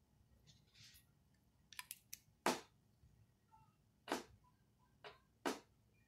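Faint sharp clicks from handling an air-compressor pressure switch as its plastic housing and spring-loaded parts are worked and pressed into place. There is a quick run of small clicks about two seconds in, then louder single clicks a second or so apart.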